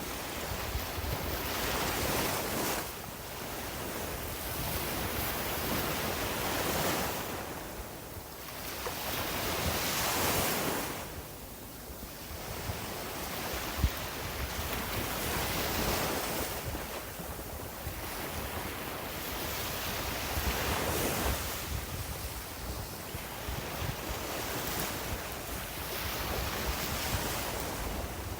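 Sea waves breaking and washing up the beach, surging and ebbing every few seconds, with wind rumbling on the microphone. A single short tap sounds about halfway through.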